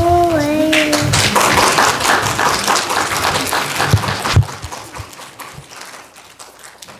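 A group of young children holds the last sung note of a song, which slides down and ends about a second in, followed by audience applause that dies away after about four seconds.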